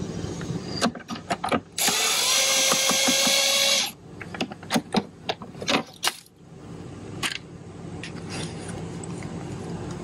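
Cordless impact driver running for about two seconds, backing out a screw on a generator's battery compartment cover. Sharp clicks and knocks follow as the cover is handled and taken off.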